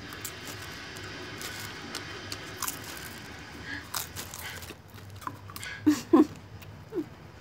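Popcorn being chewed, with scattered crunching clicks throughout. About six seconds in, a couple of short vocal sounds from the eater are the loudest part.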